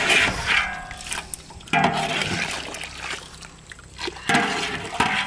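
Liquid splashing and pouring in three bursts, with quieter gaps between.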